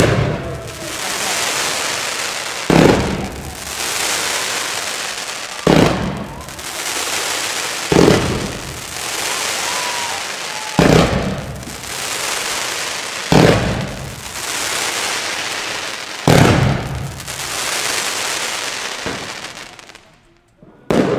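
A fireworks battery firing a sudden loud shot about every two and a half to three seconds, eight in all, each followed by a dense steady hiss of burning sparks; the shots stop about twenty seconds in.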